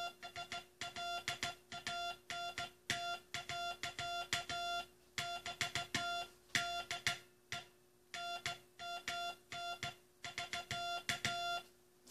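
Morse code sent by hand: a steady mid-pitched sidetone beep keyed into short dots and long dashes at a brisk pace, with short pauses between words and a click at each on and off. It is the end of the U.S. Coast Guard's last Morse code message, and the keying stops near the end.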